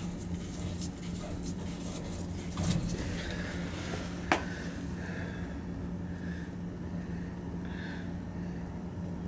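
Heating oil trickling in a thin stream from an oil tank's filter fitting into a plastic jug, the outlet fouled with bio slime. Several clicks and knocks from handling the fitting and jug come in the first four seconds, the sharpest about four seconds in, over a steady low hum.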